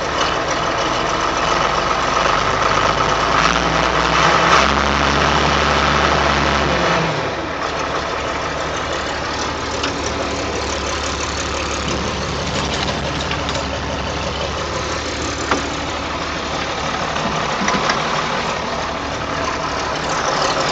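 John Deere 4240's six-cylinder turbocharged diesel engine running cold after an unassisted cold start near freezing, with no block heater, starting fluid or glow plugs. The engine note grows heavier for a few seconds, then drops about seven seconds in and settles into a steady idle.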